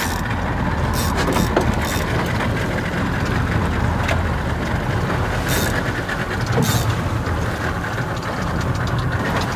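Small fishing boat's outboard motor idling with a steady low rumble, mixed with wind and water noise, and a few short hissy bursts about one, two, five and a half, and near seven seconds in.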